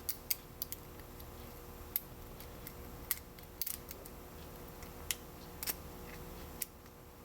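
Lock pick clicking and scraping against the straight pin tumblers in a Baton padlock's keyway under tension, a scattered run of small sharp metallic ticks. The keyway is gritty inside.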